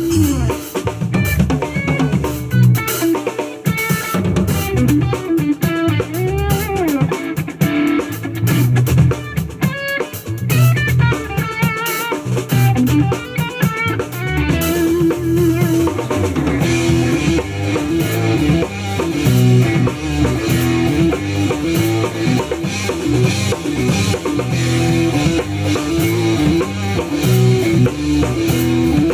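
A jazz-fusion trio of drum kit, electric bass guitar and electric guitar playing together: busy drumming under a bass line and guitar melody, with a bending guitar phrase about a quarter of the way in. From about halfway the sound grows brighter and fuller in the high end.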